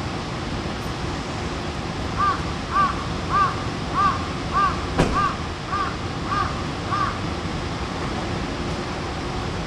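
A crow cawing about nine times in a quick, even series. Over a steady background hiss, with a single sharp click midway through.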